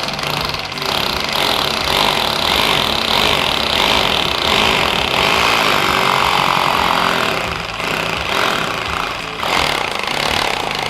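Hammer drill with a masonry bit boring a hole into a masonry wall for a wall plug: a steady, loud hammering grind that eases briefly about eight seconds in, then picks up again.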